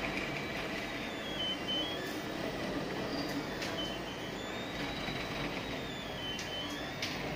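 A filament (FDM) 3D printer running: its stepper motors give a faint whine that rises and falls in pitch in slow sweeps as the axes speed up and slow down. This sits over a steady hiss, with a few sharp ticks.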